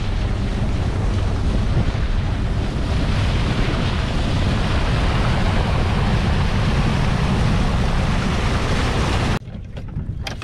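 Wind buffeting the microphone and water rushing past the hull of a motorboat under way at speed, a steady, heavy rush. It cuts off abruptly near the end to a much quieter scene.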